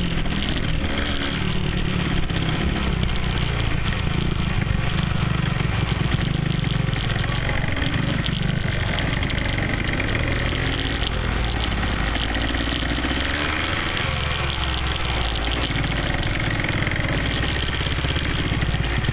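Small off-road engines running steadily while riding along: a dirt bike carrying the camera and a small ATV just ahead.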